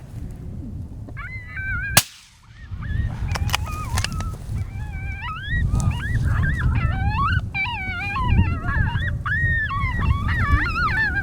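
A pack of coyotes howling and yipping, with many voices overlapping in wavering, rising and falling calls that grow denser after the first few seconds. A single sharp crack comes about two seconds in, over a low rumble.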